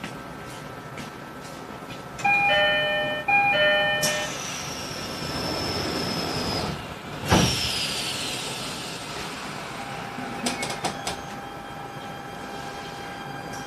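E129-series train's door chime sounds twice, then the doors close with a hiss and a loud thud about seven seconds in. Near the end a few clicks are followed by a steady tone and a rising whine as the Toyo IGBT inverter begins to drive the train away.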